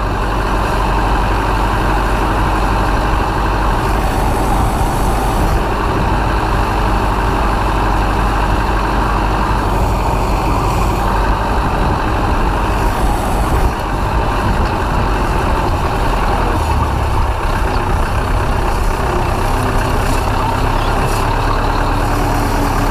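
Ursus C-4011 tractor's four-cylinder diesel engine running at a steady, loud drone.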